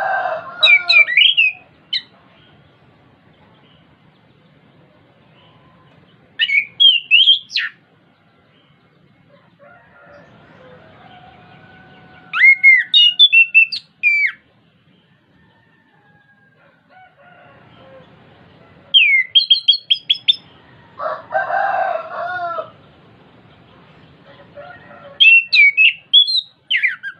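Chestnut-capped thrush (anis kembang) singing in short phrases of quick, clear whistled notes that jump up and down, five phrases about every six seconds. A rooster crows at the start and again a little past the middle.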